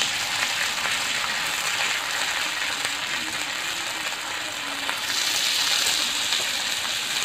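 Masala-and-flour-coated pomfret slices sizzling in shallow oil on a hot iron dosa tawa. The sizzle grows louder about five seconds in as a second slice is laid on the pan.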